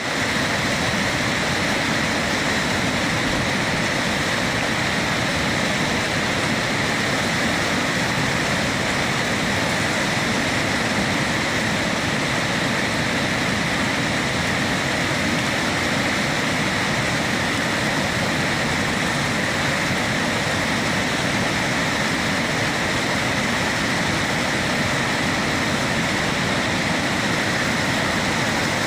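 River rapids rushing, a steady, unbroken roar of white water.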